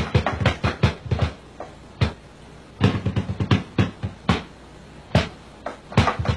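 Drums struck in irregular clusters of quick hits, each a deep thump with a sharp crack on top, with short pauses between the clusters.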